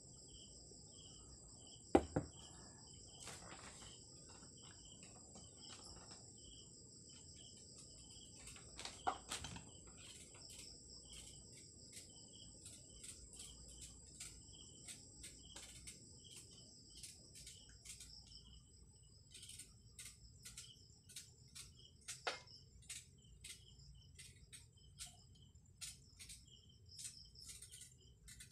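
Crickets chirping steadily, with the short scraping clicks of a knife paring the skin off a green Indian mango, coming quickly in the second half. A sharp knock about two seconds in is the loudest sound.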